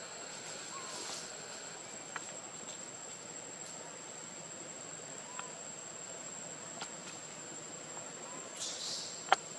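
Forest ambience: a steady, high-pitched insect drone over a faint hiss, with a few faint short chirps. Near the end comes a brief rustle, then two sharp clicks.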